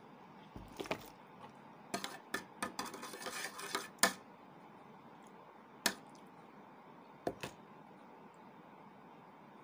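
Metal spoon clinking and scraping against a plate: a quick run of clinks about two seconds in, ending in a sharp one, then a few single clinks later on.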